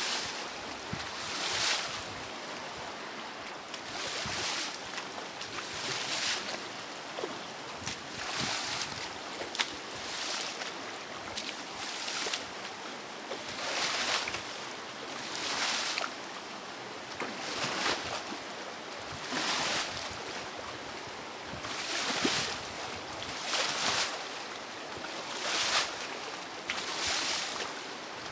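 Rough, choppy river water with waves splashing against the bank, each wave a short hissing wash, coming irregularly about every two seconds over a steady rush of water.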